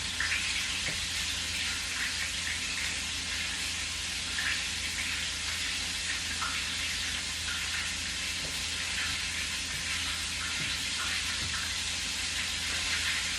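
Floured chicken pieces deep-frying in hot oil: a steady sizzle with scattered small crackles.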